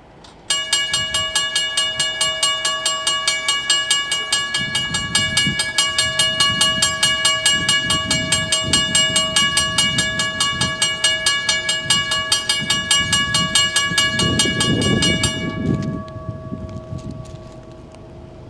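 WRRS mechanical railroad crossing bell ringing in rapid, even strokes as the crossing activates. It starts suddenly about half a second in and cuts off about fifteen seconds in, its ring fading briefly after.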